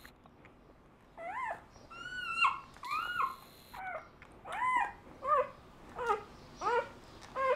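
Newborn Doberman puppy whimpering: a string of about nine short, high squealing cries, each rising and falling in pitch, beginning about a second in.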